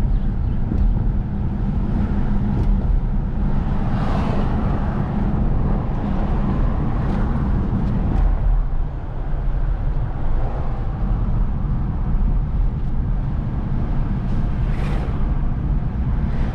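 Steady low engine and road rumble of a car being driven, heard from inside it, with two brief swells of louder road noise about four seconds in and near the end.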